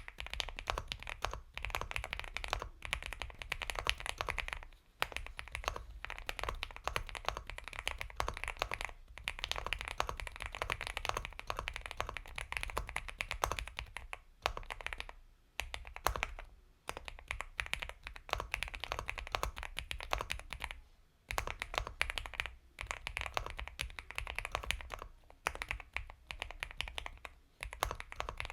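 Continuous typing on an Epomaker x Feker Galaxy 80 mechanical keyboard with Gateron Milky Yellow Pro linear switches: a soft, creamy stream of rapid keystroke clicks with a few brief pauses between bursts.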